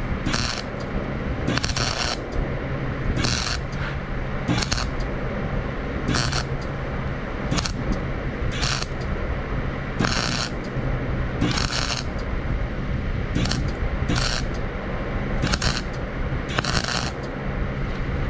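Electric arc welding on steel rake tines: a continuous crackling sizzle from the arc, swelling into sharper hissing surges roughly every second or so as the electrode is dabbed forward and brought back.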